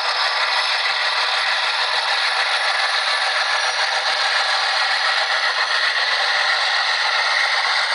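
Atlas HO-scale RS-11 model locomotive's sound decoder playing an Alco diesel engine sound through its small onboard speaker. The sound is steady and thin, with no bass.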